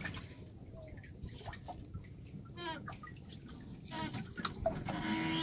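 Water dripping and splashing lightly into the water-filled live well of a wooden fishing boat where live hilsa are kept.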